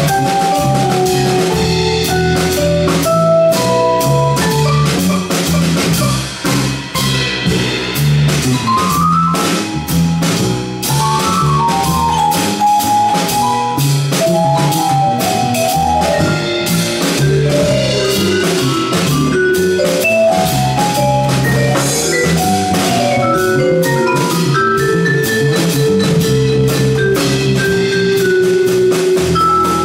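Jazz trio of vibraphone, upright double bass and drum kit playing; the vibraphone carries quick melodic lines over the bass and steady cymbal strokes.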